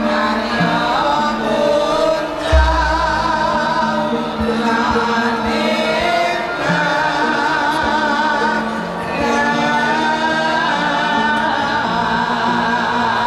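Javanese gamelan music playing, with sustained wavering singing voices over steady ringing bronze tones. A deep low thump sounds about two and a half seconds in.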